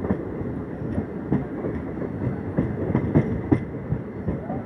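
Wheels of a moving passenger train clattering over the track: a steady rumble with an irregular run of sharp knocks, several of them close together a little after the middle.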